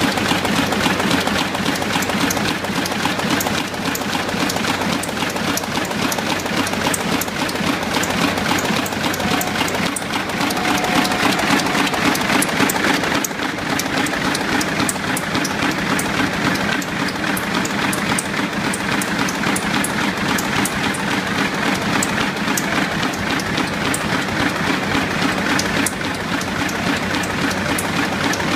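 Web offset printing press and web stacker running at production speed: a loud, steady mechanical din with a dense, rapid clicking over it as the cut sheets are fed out in an overlapping stream.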